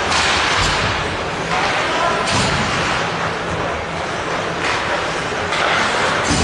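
Ice hockey game heard from the stands: spectators' voices, several short hissing scrapes of skates on the ice, and a sharp thump near the end.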